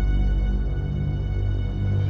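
Eerie horror background music: a heavy, sustained low drone with thin, steady high tones held above it.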